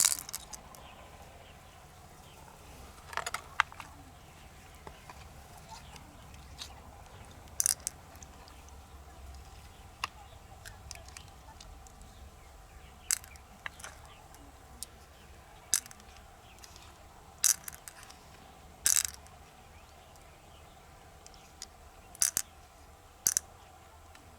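Irregular sharp clicks and cracks of hard pearl mussel shells being handled and pried open, over a faint steady low hum.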